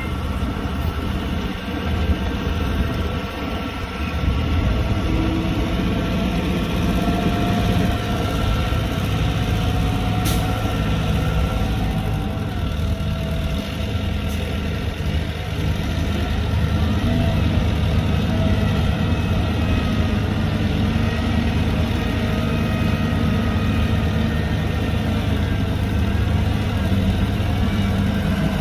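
Heavy diesel engine of earthmoving machinery running steadily, getting a little louder about four seconds in and again past the midpoint.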